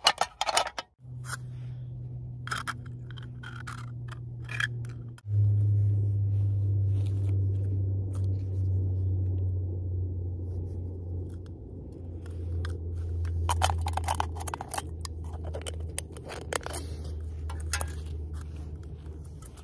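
Thin aluminium drink can being cut and worked by hand: bursts of scraping and crinkling metal. Underneath runs a steady low hum that drops in pitch about five seconds in.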